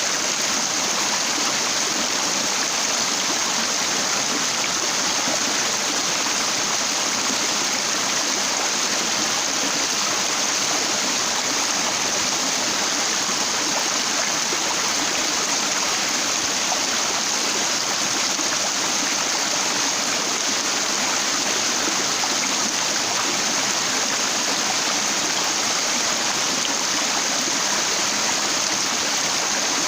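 Stream water rushing over a broad flat rock: a steady, even rush that does not change.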